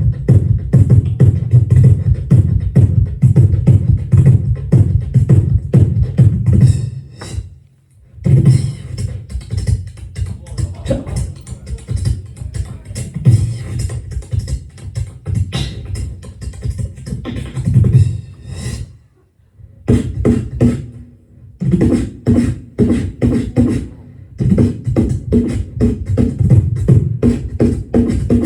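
Human beatboxing: fast, dense drum-kit patterns of mouth-made kick, snare and hi-hat sounds, played like a drummer's sound check. The playing stops briefly twice, about seven seconds in and again around nineteen seconds.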